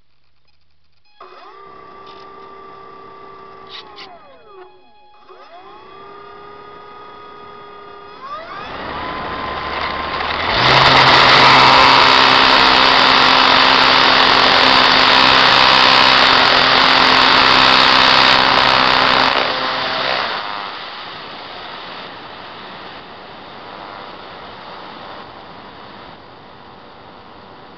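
E-flite Apprentice RC trainer plane's electric motor and propeller, heard from on board: a faint whine that dips and rises in pitch at low throttle, then runs up from about eight seconds to full throttle for the takeoff and climb, loud with rushing air, before throttling back after about twenty seconds to a quieter cruise.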